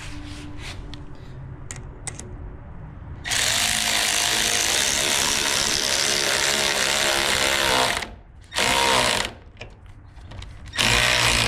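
Power tool tightening the clamp on an intercooler pipe coupler. It runs once for about four and a half seconds, then in two short bursts near the end, after a few light clicks of handling.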